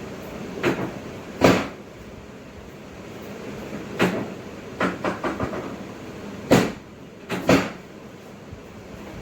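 A series of short, sharp knocks at irregular intervals, the loudest about one and a half seconds in and again about six and a half seconds in, over a faint steady hum.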